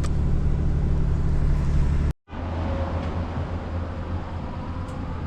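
Pickup truck driving, a steady engine and road drone heard from inside the cab. It cuts out for a moment about two seconds in, then carries on as before.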